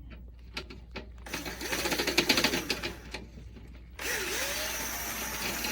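Power drill-driver backing screws out of a circuit board. A few clicks come first, then the motor runs for about two seconds with rapid clicking and its pitch rising and falling. It stops briefly and starts again near the end.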